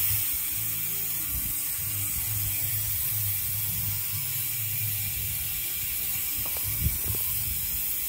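Ragusa XM900 rear hub's six-pawl freehub buzzing as the wheel freewheels: a fast, steady ratcheting that starts suddenly and holds at an even level.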